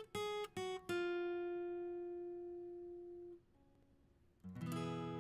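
Background music: a few short plucked notes, then one long note slowly fading away, a short pause about three and a half seconds in, then several notes ringing together.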